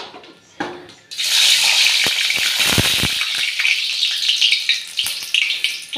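A few light knocks, then hot oil in a steel kadai bursts into a loud sizzle about a second in as spices are dropped in by hand, and keeps sizzling and crackling steadily.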